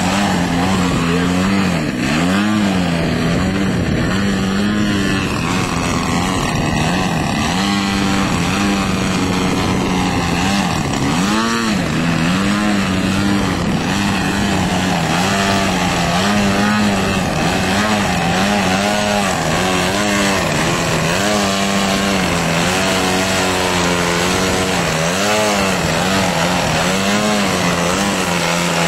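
DLE-55 single-cylinder two-stroke gasoline engine turning a Vess 23A propeller on an aerobatic RC biplane, running at hover power. Its pitch wavers up and down every second or two as the throttle is worked to hold the plane nose-up in a hover.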